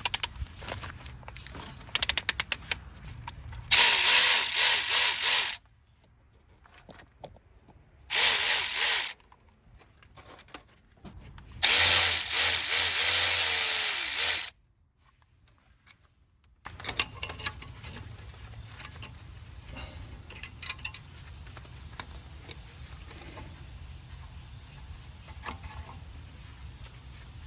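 A power tool spinning a 14mm socket on a brake caliper's bolts in three bursts: a short one near 4 s, a brief one near 8 s, and a longer one around 12–14 s, each a loud whirring whine. A few sharp clicks come before the first burst, and light clinks of handling follow near the end.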